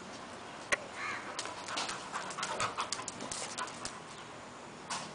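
A Labrador and a Lhasa Apso at play: a scatter of short, irregular clicks and scuffles, with brief dog sounds and faint panting.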